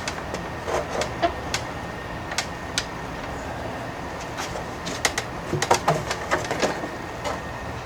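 Scattered metallic clicks and knocks from handling an outboard motor and its mount, thickest about five to seven seconds in, over a steady low background hum.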